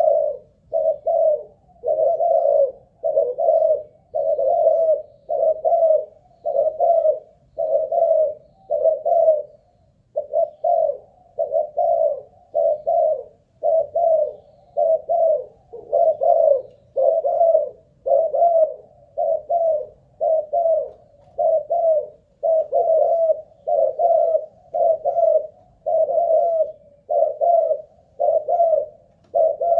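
Spotted dove cooing over and over, a steady run of short coos at about one a second without a break, the long unbroken cooing that shows the bird's singing stamina.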